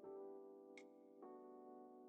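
Quiet background music: sustained electric piano chords, changing about a second in, with a light percussive tick in between.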